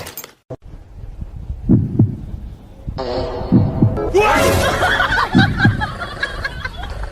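Low double thumps repeating about every two seconds in a heartbeat-like rhythm. From about three seconds in, a pitched, busy layer of sound joins them.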